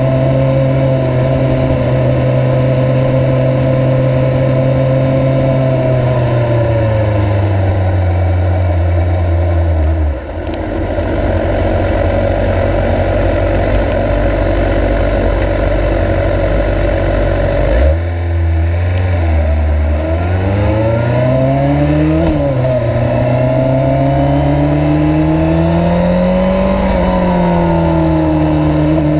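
Suzuki GSX-R 750 inline-four engine heard from on the bike: running steadily at first, its note falling as the bike slows, then idling low for several seconds. From about two-thirds of the way through it pulls away with revs climbing, drops sharply at a gear change, and climbs again.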